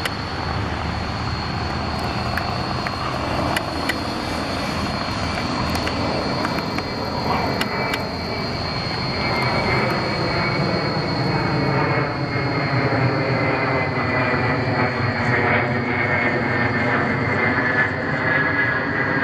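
Jet noise of an Ilyushin Il-76T's four Soloviev D-30KP turbofan engines as the aircraft passes low overhead on landing approach: a steady rumble with a high whine that slowly falls in pitch as it goes by, growing a little louder about halfway through.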